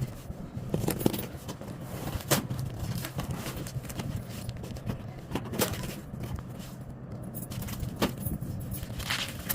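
A cardboard box and its packaging being handled: scattered sharp knocks, clicks and scrapes about once a second, over a steady low hum.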